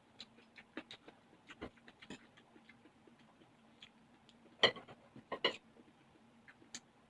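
Close-miked mukbang eating sounds: an irregular run of small mouth clicks and smacks while chewing, the loudest a little past halfway, over a faint steady hum.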